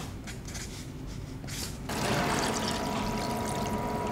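Water running or pouring, starting abruptly about halfway through, with a steady tone in the flow.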